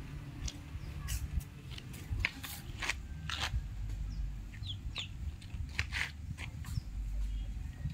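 Chickens clucking in short, irregular calls, with a few brief high chirps and a steady low rumble underneath.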